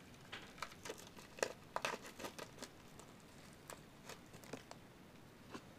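Faint plastic clicks and crinkling as a trading card is handled and fitted into a magnetic one-touch card holder, a quick run of small clicks for the first few seconds, then a few scattered ones.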